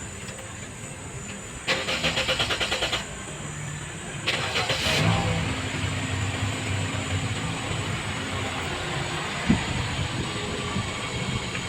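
Toyota Vios starter cranking in a rapid, even pulse for about a second without a start, then cranking again about four seconds in, when the engine catches and settles into a steady idle. It is a test start after the fuel pump's check valve, filter and leaking hose were replaced to cure hard starting.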